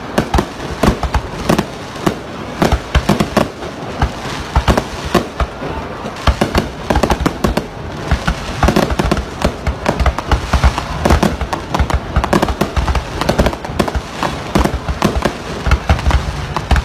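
Fireworks display: aerial shells bursting in a dense, continuous barrage of rapid, irregular bangs and crackles, several a second.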